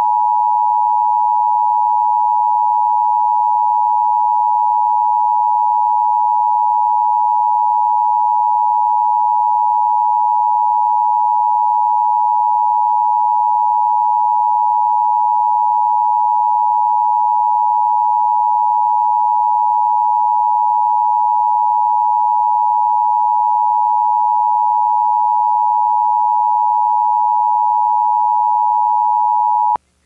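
Emergency Alert System attention tone: one loud, steady, unwavering alert tone held for about half a minute, then cut off abruptly near the end. It is the alert signal of a Required Monthly Test.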